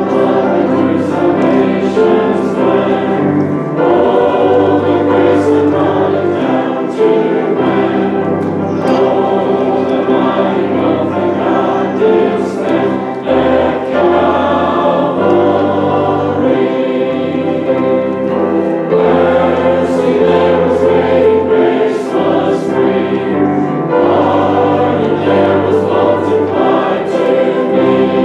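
A group of voices singing a hymn together in harmony over a sustained keyboard accompaniment, the chords changing every second or two.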